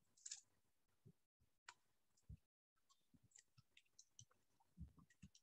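Near silence with faint, irregular clicks and soft taps scattered through it, loudest near the end.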